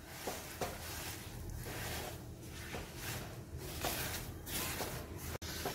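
Silicone spatula stirring and scraping a dry mix of roasted semolina, sugar and milk powder around a pan, in soft repeated sweeps about once or twice a second.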